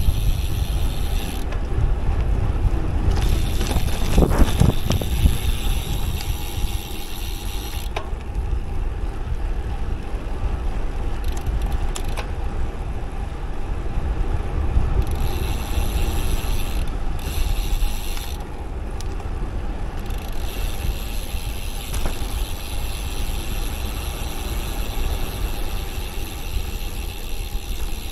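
Wind rumbling over the microphone and tyre noise on a fast road-bike descent, with the rear freehub buzzing rapidly as the bike coasts. The buzz stops and restarts several times, for about a second near the start, for several seconds in the middle, and twice more briefly after that.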